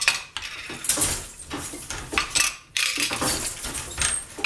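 Wooden floor loom being worked row by row: the shuttle thrown through the shed, the beater pulled and the treadled shafts shifting, giving a wooden clack and clatter about once a second.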